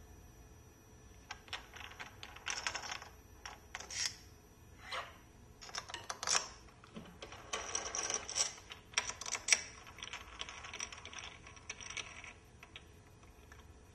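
Hands handling metal parts on a machine fixture plate: an irregular run of clinks, clicks and short scrapes of metal on metal, busiest and loudest in the middle.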